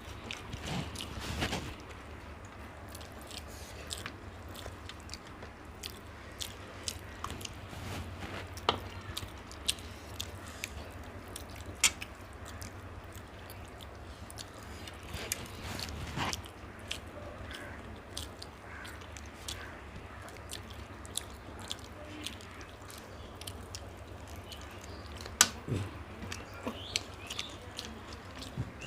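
People eating mutton biryani: chewing and biting, with scattered short, sharp mouth and eating clicks over a steady low hum.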